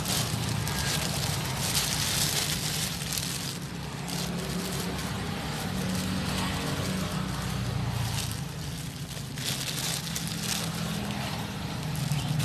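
A motor vehicle's engine running steadily, with light rustling and handling noise over it.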